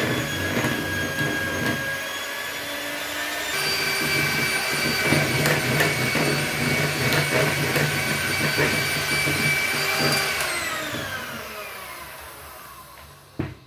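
Philips electric hand mixer beating cream and mascarpone in a plastic bowl, its motor whining steadily. About three and a half seconds in it steps up to a higher speed; near the end it is switched off and winds down, followed by a single click.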